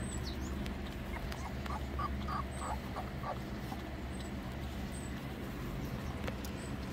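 Very young puppies giving a quick run of short, faint squeaks, about six in two seconds, over a steady low hum.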